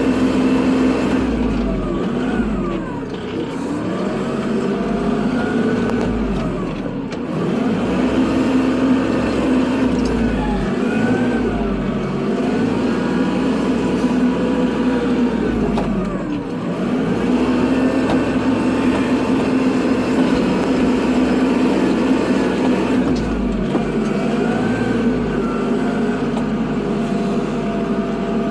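Kubota tractor's diesel engine running steadily while plowing snow, its pitch dropping and recovering several times as it takes up load and eases off.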